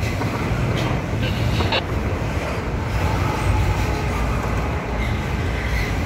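Double-stack intermodal freight train passing, a steady low rumble of the container well cars rolling on the rails, with a few short clicks about a second in.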